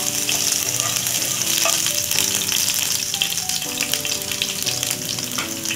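Chopped garlic and ginger sizzling steadily as they fry in hot oil in a pan, stirred with a spatula at the start. Soft background music with held notes plays underneath.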